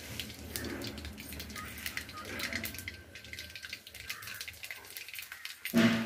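Cumin seeds crackling and spluttering in hot oil in an iron kadhai, a steady run of small pops. Near the end a dog barks, the loudest sound.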